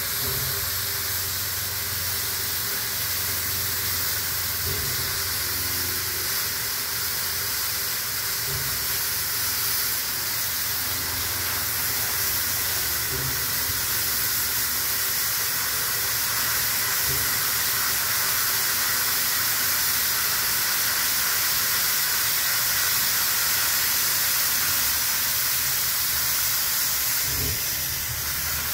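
Steam locomotive standing with steam jetting from its open cylinder cocks on both sides, a continuous loud hiss over a low steady hum. The hiss swells a little through the middle and eases near the end.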